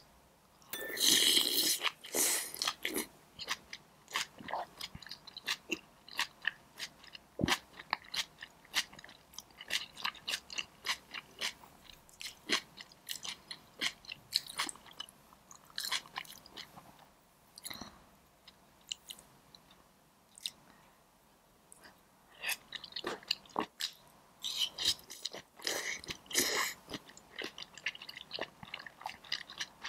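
Close-miked eating: crisp crunching as a person bites into a mouthful of leafy green vegetable, loudest about a second in, then chewing with many small wet mouth clicks, and a second run of crunchy chewing a few seconds before the end.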